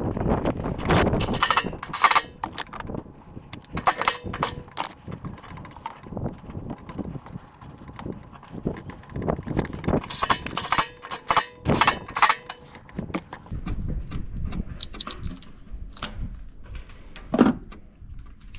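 Irregular knocks and metallic clanks of hand work on the truck, tools and parts being handled. They come thick and fast through the first two-thirds, thin out after about thirteen seconds, and end with one sharper knock near the end.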